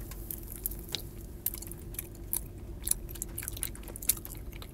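Close-up chewing of a soft, goo-filled gummy candy ball (Efrutti watermelon splash gummy): irregular short clicks and mouth smacks over a steady low hum.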